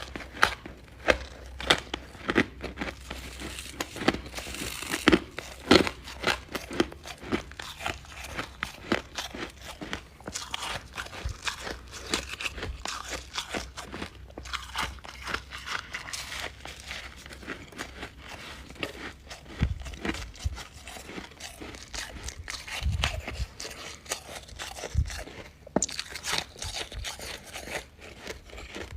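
Close-up crunching and chewing of refrozen freezer frost, with dense, irregular crisp crackles as the ice is bitten and chewed.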